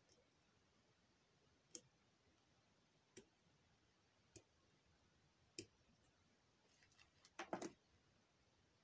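Faint clicks and taps from fly-tying tools being handled at the vise: a few scattered single clicks, then a louder quick cluster of clicks near the end.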